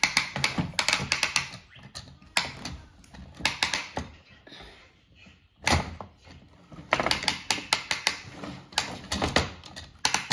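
Plastic toy race track set being worked by hand: bursts of rapid clicking and clatter, like a ratcheting hand-crank launcher being turned, with one low thump a little past halfway.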